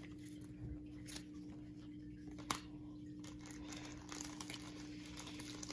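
Quiet room tone with a steady low hum, faint rustling and a few light clicks, the sharpest about two and a half seconds in.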